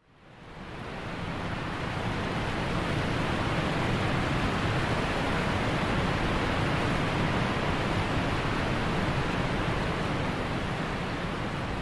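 Small waterfall and river rapids rushing steadily, fading in over the first second or so.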